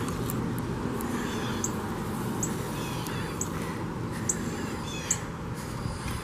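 Birds calling: short high notes repeating about once a second, with falling chirps between them, over a steady low rumble.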